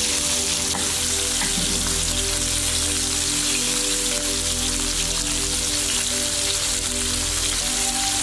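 Pieces of seasoned fish sizzling steadily in hot oil in a frying pan, with background music underneath.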